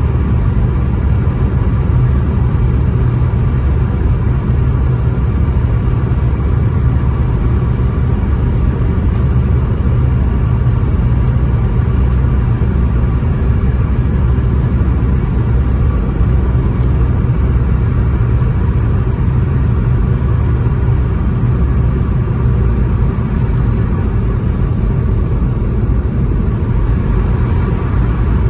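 Steady low rumble of engine and airflow noise inside an airliner cabin during the approach, with a faint steady whine above it.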